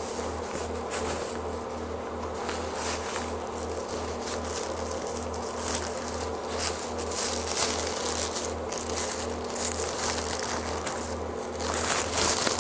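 Packaging rustling and crinkling as a box is unpacked by hand, over a steady low electrical buzz that pulses evenly.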